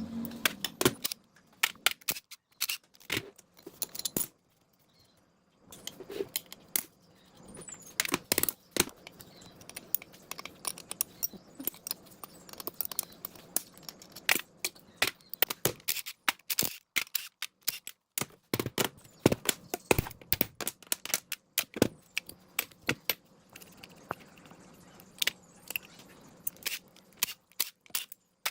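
Irregular sharp clicks, taps and clinks of hand work on parts during the restoration of an old generator set, coming in quick clusters with a short pause about four seconds in.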